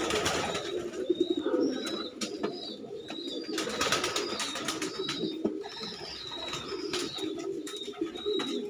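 Domestic pigeons cooing again and again in low phrases, with short high chirps repeating over them.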